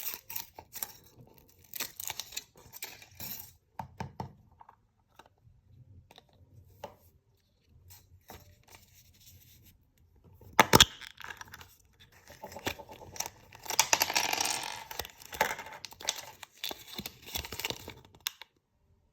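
Foil wrappers of chocolate surprise eggs crinkling and tearing, with small irregular plastic clicks and taps. There is one sharp click partway through and a longer stretch of crinkling near the end.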